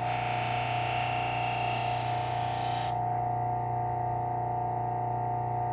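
Knife edge pressed against a spinning Scotch-Brite wheel on a low-speed belt sander, a rasping rub that lasts about three seconds and then stops as the blade is lifted, removing the burr. The sander's motor hums steadily throughout.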